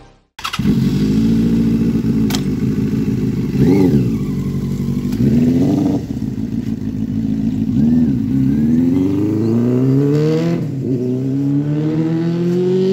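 Benelli 600i inline-four motorcycle with an aftermarket SC Project dual exhaust, its revs rising and falling in a few short swells, then accelerating away: the engine pitch climbs in a long rise, drops at a gear change and climbs again near the end.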